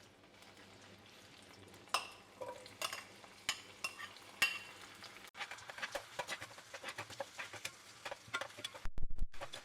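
Chopped onion and ginger-garlic paste being stirred in a pan of hot olive oil: a utensil clicks and scrapes against the pan over a light sizzle, the clicks coming thick and fast in the second half. A low bump near the end.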